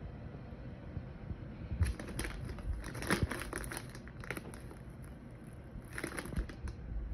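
Thin plastic produce bag crinkling as it is handled: a couple of seconds of crinkling starting about two seconds in, then a shorter spell near the end.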